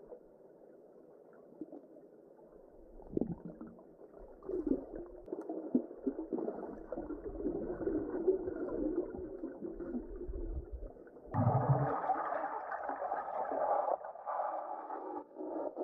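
Muffled sound of river water heard underwater by the camera: flowing water and bubbling with a few knocks, turning suddenly louder and brighter about eleven seconds in.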